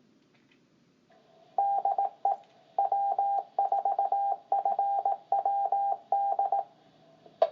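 Amateur radio repeater's automatic Morse code identifier, heard through the receiver: a carrier comes up about a second in, then a run of keyed beeps of uneven length, dots and dashes, goes on for about five seconds. A short sharp click near the end as the transmission drops.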